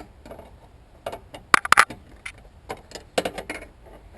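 Open-end wrench clicking and clinking against a terminal nut inside a welder as the nut is turned tight: a run of sharp, irregular metallic taps in small clusters.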